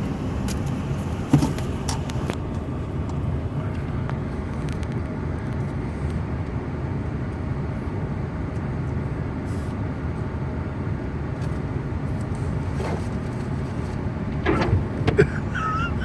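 Steady low rumble of a running vehicle heard from inside the cab, with a sharp click about a second in and a few more clicks near the end.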